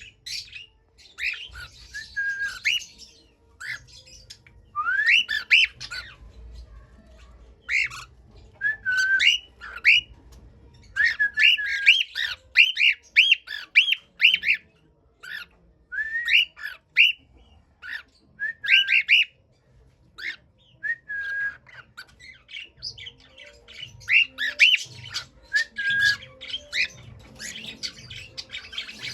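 Cockatiel whistling and chirping: phrases of short, quick rising whistle notes broken by brief pauses, with some scratchy chatter in between.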